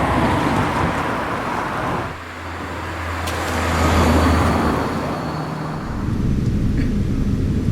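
Road traffic: vehicles passing by, each swelling and fading, over a low engine hum. About six seconds in it gives way to a steady, low engine rumble.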